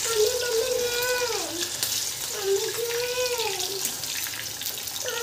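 Cornflour-battered corn kernels sizzling steadily as they deep-fry in hot oil in a kadhai. Over it, a high voice holds long notes that slide downward, three times.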